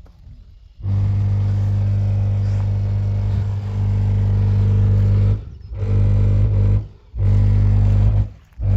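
A 50 Hz test tone played loud through a Toyota Tercel's stereo speakers. It comes through as a steady deep hum with buzzy overtones, and it cuts out briefly about four times. It sounds awful.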